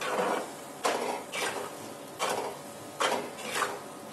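Steel spatula stirring a thick paneer curry in a pan, scraping across the pan in about six strokes.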